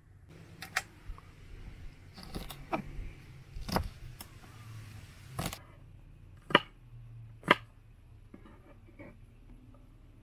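Kitchen knife chopping fresh green beans on a wooden cutting board: a handful of separate crisp chops, the two loudest about a second apart in the second half, then a few lighter taps.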